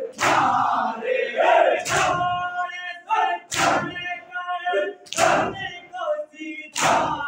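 A group of men chanting a noha (Shia mourning lament) together, with the whole group beating their chests in unison (matam). Five loud slaps of hands on chests come in an even beat about every one and a half seconds, with the chant carrying on between them.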